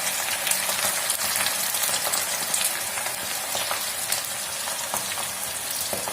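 Corn-flour-coated bitter gourd slices sizzling in hot oil on a tawa, a steady hiss with many small crackling pops.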